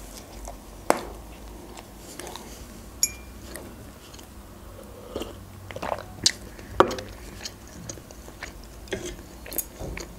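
Close-up chewing and biting of a sausage roll baked in dough, with wet mouth noises and scattered sharp clicks. The loudest click comes about a second in.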